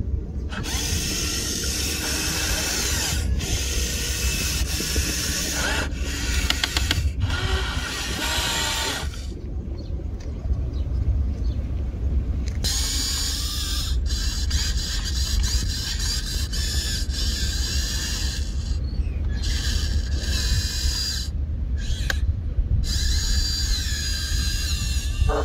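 Huina 1593 remote-control excavator's electric motors and gearboxes whining and grinding as the boom, arm and bucket dig and swing, in stretches that start and stop abruptly, with the pitch rising and falling. A steady low rumble runs underneath.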